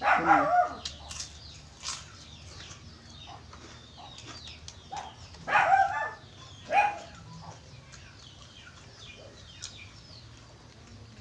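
Chickens calling in the background: three loud calls that fall in pitch, one right at the start and two more around six and seven seconds in. Between them are small faint clicks and crunches from eating.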